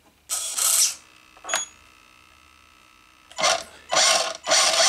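Toy-grade RC car's electric motor, newly wired to a hobby-grade ESC, spinning up in four short bursts of throttle, the last lasting about two seconds. There is a short click about one and a half seconds in.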